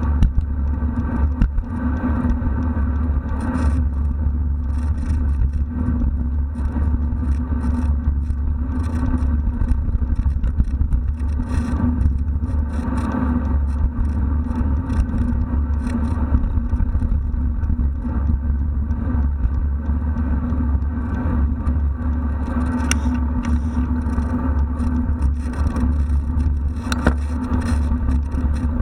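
Steady low rumble of wind and tyre-on-asphalt road noise picked up by a handlebar-mounted camera on a moving bicycle, with a few brief knocks and rattles from the bike over bumps.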